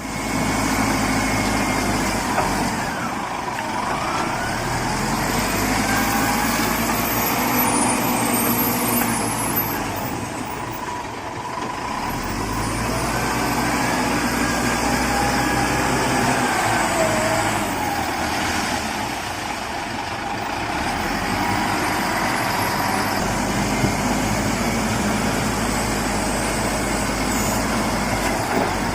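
Truck or heavy-machine engine running, easing between idle and higher revs, with a whine that rises and falls in pitch.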